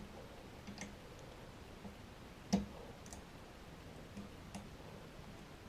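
Faint, scattered metallic clicks of a lever lock pick working inside a Eurospec Easy T E-Star RS lever deadlock while the levers are being picked, a handful of separate ticks with one louder click about two and a half seconds in.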